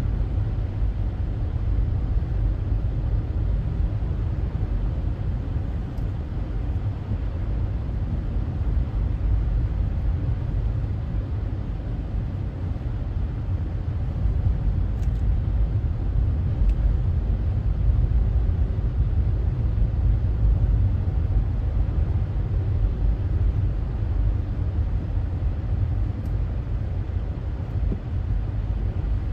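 Steady low rumble of vehicles driving on a snow-covered highway: engine and tyre road noise.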